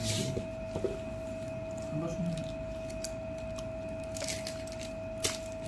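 Metal ladle stirring and scooping crushed watermelon pulp and juice in a hollowed-out watermelon half: wet squishing with a few sharp clicks of metal. A steady tone hums underneath throughout.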